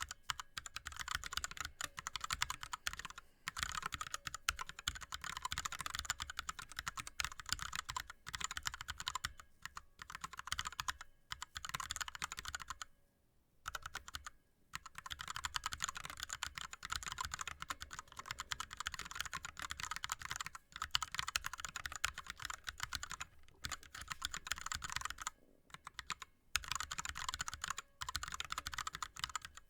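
Fast, continuous touch-typing on an ErgoDox split keyboard with Cherry MX Red linear switches and blank DSA keycaps, a dense patter of key clacks. It pauses briefly a few times, longest about 13 seconds in and again about 25 seconds in.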